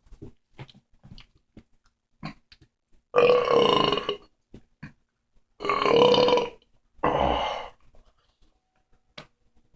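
A person belching loudly three times, each belch lasting about a second, with the first coming about three seconds in after a few faint mouth clicks.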